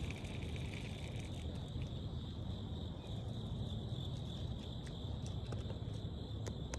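Steady high-pitched chirring of insects, over a low rumble and a few faint ticks.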